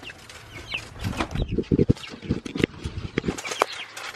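Young chicks peeping with short falling chirps. From about a second in, a string of sharp knocks and low thumps runs under the peeping.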